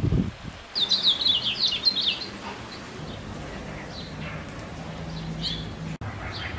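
A brief low rush of a small wave on a pebble beach at the very start, then a cactus wren calling: a quick run of chattering notes lasting over a second, starting about a second in, followed by a couple of single notes.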